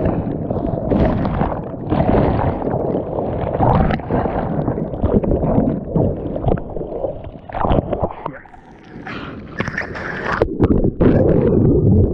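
Churning surf water rushing and gurgling over a waterproof action camera as it goes under and through whitewater, a loud rough rumble with scattered knocks and splashes. It drops quieter for a moment about two-thirds of the way through, then surges up again as the camera comes back into breaking foam.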